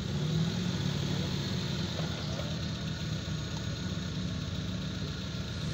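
Car engine idling steadily with a low, even hum.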